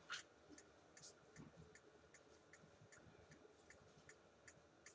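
Faint, regular ticking of a wall clock, about two to three ticks a second, with a sharper click right at the start.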